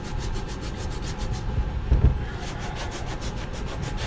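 A small piece of sandpaper rubbed quickly back and forth by hand over the leather toe of a work boot, a rapid rasping of about seven strokes a second, smoothing out rough, stained spots on the upper. A dull knock sounds about two seconds in.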